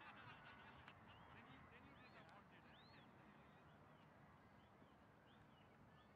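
Near silence: faint open-air ambience with a few faint, high, short chirping calls scattered through it.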